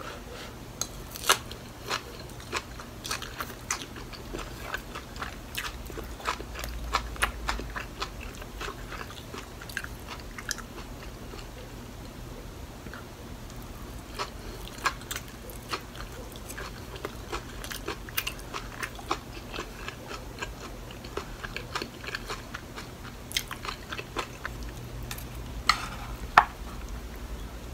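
Close-up eating sounds: chewing and crisp, crunchy bites of a pan-fried kimchi pancake, with short clicks scattered throughout. The sharpest click comes near the end, as chopsticks and a wooden spoon work on a wooden plate.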